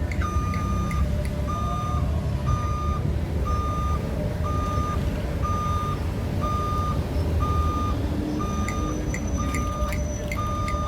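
Excavator warning alarm beeping steadily about once a second, each beep a single high tone, over the low running of the diesel engine of an amphibious CAT 307 excavator. A few light clicks come near the end.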